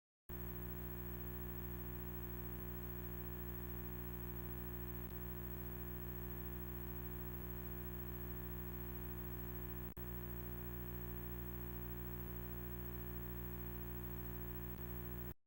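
Steady low electronic drone made of many layered tones. It cuts in abruptly just after the start, drops out briefly about ten seconds in, and cuts off abruptly near the end.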